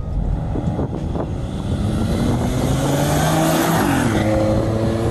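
The turbocharged 3.6-litre V6 of a 2014 Jeep Wrangler Rubicon Unlimited pulls under throttle with the turbo spooling, its pitch rising. The pitch drops at a gear change just under four seconds in, then climbs again.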